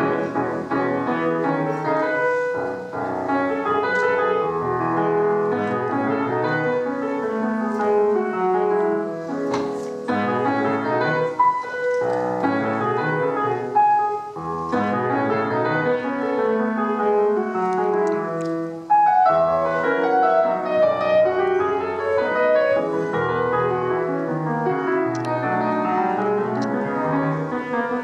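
Solo grand piano playing an Argentine folk dance piece. The playing starts suddenly right at the opening and runs on as a dense, continuous flow of notes.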